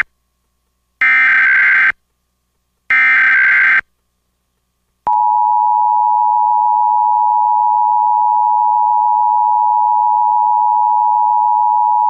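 Emergency Alert System tones: two short bursts of SAME digital header data, about a second each with silent gaps between them. About five seconds in, the steady two-tone EAS attention signal starts and holds.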